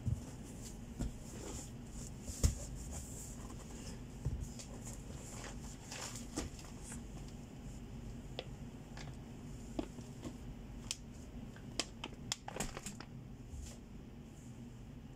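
Packing noises: plastic-wrapped goods and bags crinkling and knocking against a cardboard carton as items are handled and placed in the box, with scattered short knocks and one sharper thump about two and a half seconds in, over a steady low hum.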